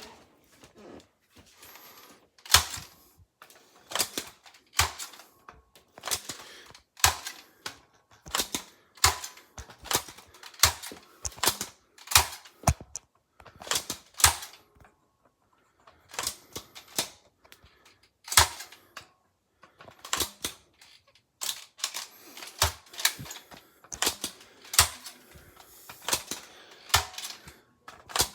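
Sharp clicks repeated irregularly, about one to two a second, starting a couple of seconds in with a short pause about halfway through. No alarm tone sounds.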